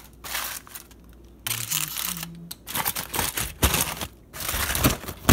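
Aluminium foil crinkling and rustling in irregular bursts as it is folded and crimped by hand around a slab of spare ribs. There is a sharp crackle near the end.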